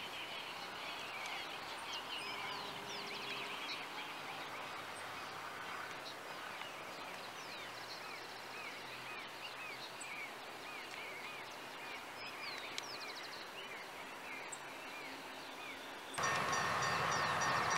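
Small birds chirping over steady outdoor background noise. About sixteen seconds in, the horn of an approaching ALCO RSD-16 diesel locomotive starts sounding suddenly, loud and steady, several tones held together.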